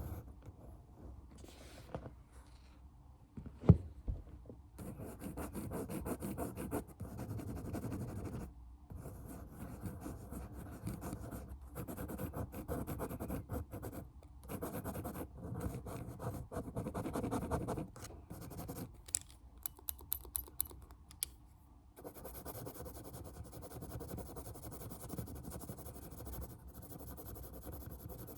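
Close-miked ASMR scratching and quick tapping by hand. There is a sharp tap about four seconds in, then a long run of dense, rapid scratching strokes and a few separate clicks. The last quarter holds only a steady hiss.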